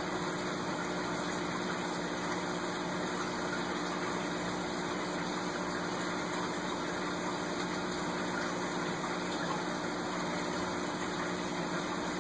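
Aquarium filter pump running: a steady low hum under an even hiss.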